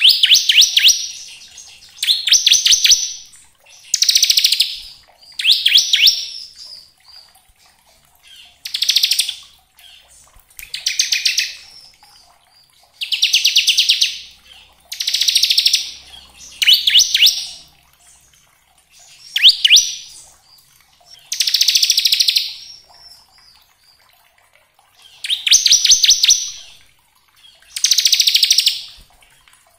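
Bar-winged prinia (ciblek) singing its 'ngebren' song: fast, rattling, drill-like trills, each about a second long, repeated one every two seconds or so.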